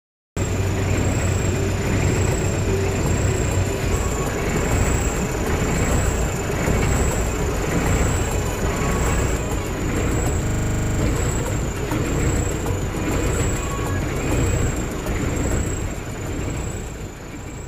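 Houseboat's engine running steadily: a loud low rumble under rushing noise, with a thin high whine that wavers slowly. It fades away near the end.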